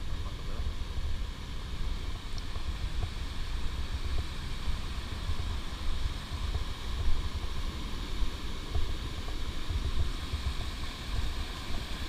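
Stream water rushing steadily down a small rocky cascade, with an irregular low rumble underneath.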